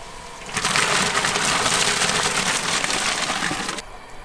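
Live mudfish (loaches) tipped from a plastic colander into a pot of steaming hot water: a dense, crackling splashing hiss that starts a little after half a second in and cuts off about three seconds later.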